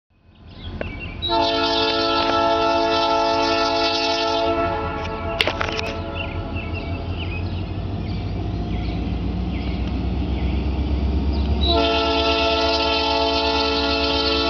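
Wheeling & Lake Erie diesel freight locomotive sounding its air horn in two long, chorded blasts, the second beginning about twelve seconds in, over the steady low rumble of the diesel engine as the train approaches.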